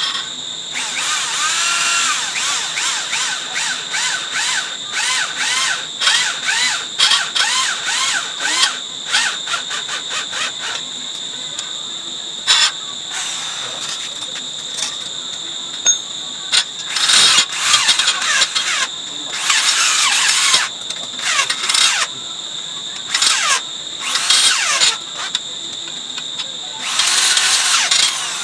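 Electric drill run in short stop-start bursts against the steel tine assembly of a rotary tiller, its motor speeding up and slowing with each trigger pull, the bit squealing on the metal. A steady high-pitched insect chirr runs underneath.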